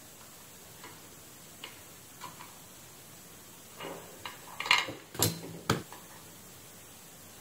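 Light handling clatter: a circuit board being moved and set down, and metal tweezers clicking on a work mat. A few faint ticks come first, then a cluster of sharp clicks about four to six seconds in, the loudest three close together.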